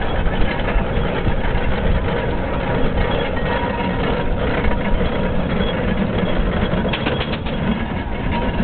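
Steam traction engines and a steam road roller running past at low speed: a steady, dense mechanical rumble, with a quick run of sharp knocks about seven seconds in.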